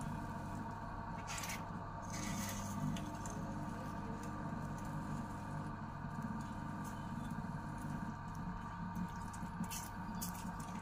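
Wet clay squishing and rubbing under a potter's hands as a clay pot turns on the wheel, over a steady low hum, with a few brief sharper noises.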